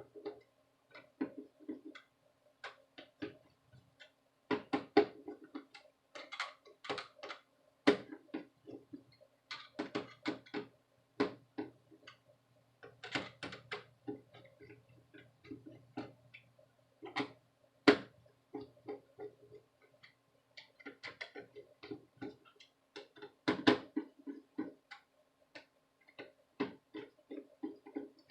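Small screwdriver tightening the CPU heatsink screws on an HP Pavilion laptop a little at a time: irregular clicks and light taps of the tool and screws against the metal heatsink and board, over a faint steady hum.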